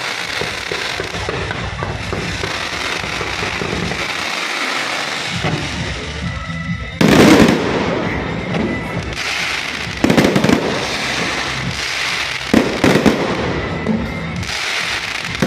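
Aerial fireworks display: steady dense crackling, broken by loud bangs about halfway through, again a few seconds later, twice in quick succession after that, and once more near the end.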